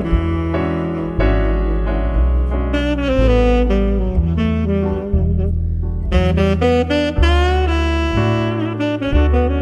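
Background jazz music: a saxophone melody over a walking bass line.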